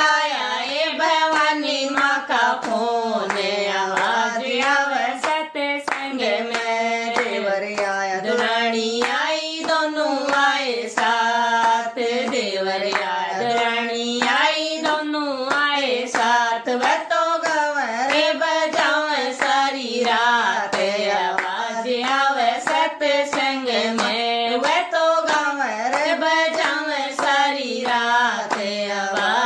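A woman singing a Hindi devotional bhajan to the mother goddess, with steady hand claps keeping the beat several times a second.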